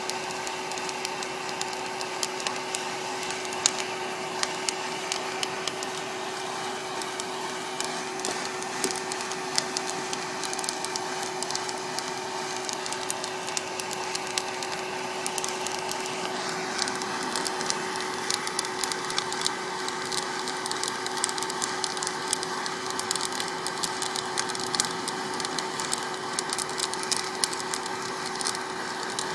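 Coffee beans crackling as they roast in a West Bend Poppery hot-air popper, over the steady hum of its fan. Many sharp little snaps come thicker in the second half: the beans are going through crack.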